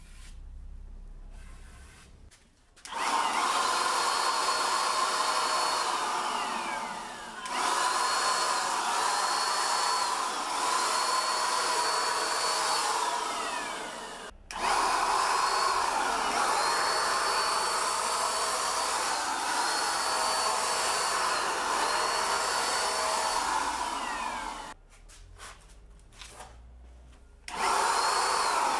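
Cordless electric paint sprayer running with a steady motor whine while spraying water-based polyurethane. It starts about three seconds in and dips in pitch once. It cuts out for an instant midway, stops for a couple of seconds near the end, then starts again.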